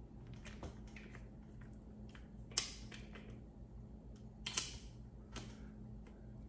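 Sharp metal clicks from a Heritage Rough Rider single-action .22 revolver as its .22 Magnum cylinder is being fitted, about four clicks spread out, the loudest about two and a half seconds in.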